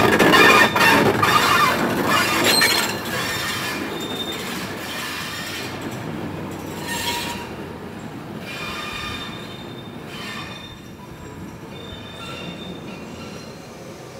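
A slow goods train passing and running away, its GWR brake van at the tail: wheels squealing on the rails, with clicks over rail joints. The sound fades steadily as the train draws away.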